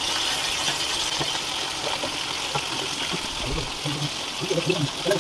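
Quail pieces deep-frying in hot oil in a kadai: a steady sizzle of bubbling oil.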